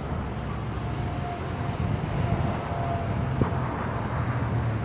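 Steady low rumble of road traffic, with one brief click about three and a half seconds in.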